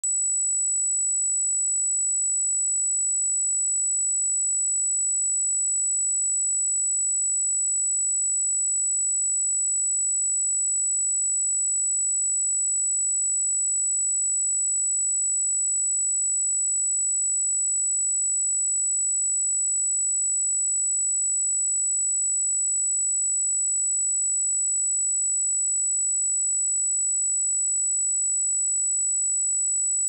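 A steady, high-pitched 7887 Hz sine-wave test tone, one pure tone held at constant loudness.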